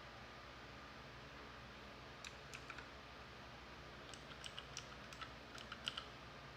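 Alfawise K1 mechanical keyboard's clicky blue switches being pressed: a few keystrokes about two seconds in, then a quicker run of about a dozen from roughly four to six seconds.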